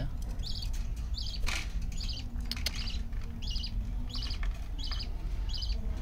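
Budgerigar chirping: short high calls repeated steadily about twice a second, with one brief rustle about a second and a half in.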